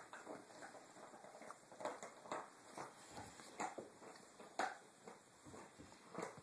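Two dogs play-wrestling on a rug: short, irregular scuffling and mouthing noises come a few times a second, the loudest about four and a half seconds in.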